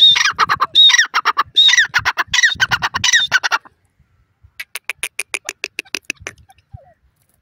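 Grey francolin calling: a loud run of harsh repeated notes for about three and a half seconds, then after a short pause a quicker series of quieter clicking notes, about seven a second.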